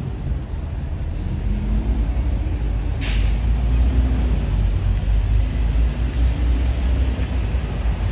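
Road traffic rumbling steadily, with a short hiss about three seconds in and a faint high squeal a couple of seconds later.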